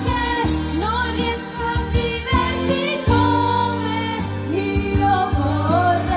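Several people singing together into handheld microphones, amplified through a speaker, over steady instrumental accompaniment.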